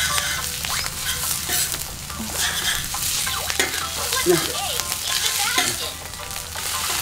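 Maggi curry noodles sizzling in a pan as they are stirred, with repeated clicks and scrapes of the utensil against the pan.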